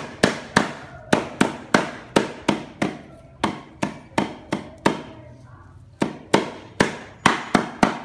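Heavy knife chopping on a wooden block: sharp blows at about three a second, with a short pause near the middle.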